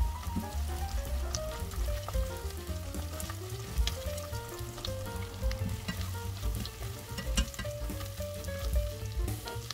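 Chopped onion and a spoonful of red paste sizzling in hot oil in an enamel pot, with scattered crackles, while a silicone spatula stirs them.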